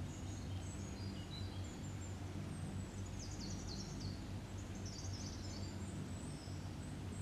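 Faint birds chirping and trilling in the background, scattered short calls throughout, over a steady low hum.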